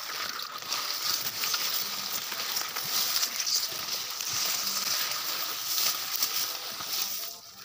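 Long king grass leaves rustling and scraping against the phone as it is pushed through the plants, a rough crackling hiss that rises and falls and stops just before the end.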